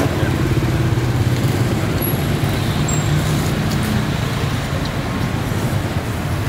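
Steady road traffic noise: motor vehicle engines running close by, with a continuous low hum.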